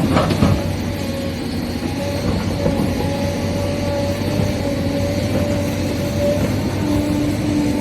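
Electric motors of a Huina 1593 RC excavator whining steadily as the machine works, with two sharp knocks right at the start.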